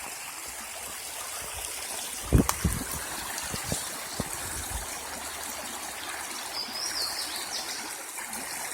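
Steady trickling rush of a flowing stream, with a few loud dull thumps about two and a half seconds in and a brief faint high twitter near the end.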